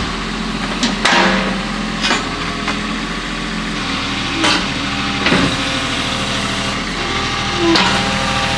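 Hitachi EX22 mini excavator's diesel engine running steadily while the machine works, with sharp metallic clanks every second or two and a few short squeaks.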